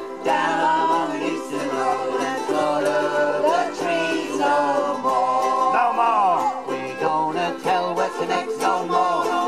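A ukulele band strumming chords while several voices sing the song's melody together.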